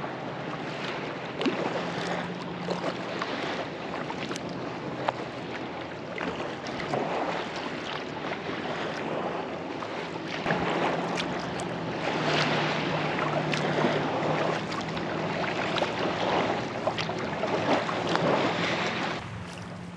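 Kayak paddle strokes splashing and dripping, with water moving along the hull; the swells of splashing come about every one and a half to two seconds and grow louder in the second half. Wind on the microphone adds a rough hiss.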